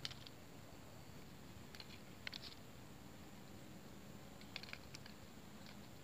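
Near silence: a faint outdoor background with a few soft, short clicks, one at the start, two or three about two seconds in and a small cluster near the five-second mark.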